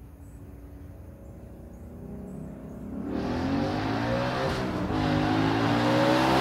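Ford Mustang Boss 302's 5.0-litre V8 with its side-pipe resonators removed, accelerating at wide open throttle. The exhaust is first heard faintly in the distance, then from about three seconds in grows much louder and rises in pitch as the car comes closer.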